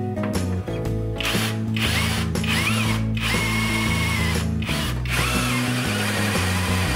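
Cordless drill running in several short bursts into the car's sheet-metal front inner fender, its motor whine climbing as it spins up and cutting off between bursts, from about a second in until near the end. Background music plays throughout.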